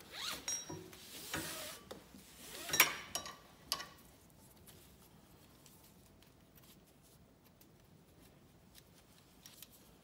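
Nylon ratchet-strap webbing being pulled and slid around a strut coil spring, a rustling, zipper-like swish in the first four seconds, with a sharp click of the strap's metal hardware about three seconds in.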